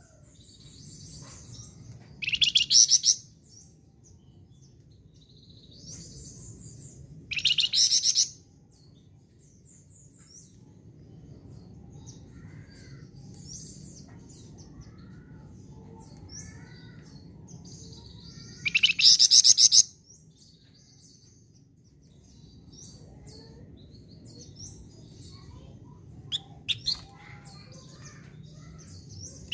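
A songbird of the kind Indonesian keepers call 'flamboyan', singing hard: three loud bursts of rapid, high trilled notes, about two, seven and nineteen seconds in, with softer scattered chirps in between.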